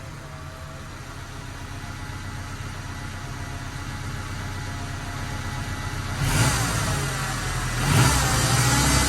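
1992 Suzuki Sidekick's engine and drivetrain running, slowly getting louder. It jumps in loudness with a wavering whine about six seconds in, and again near the end.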